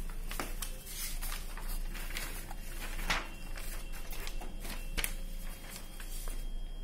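Paper rustling and scattered clicks and knocks as a large original is turned over and placed on a Canon iR 2520 photocopier, with two sharper knocks about three and five seconds in. A faint steady tone runs under the second half.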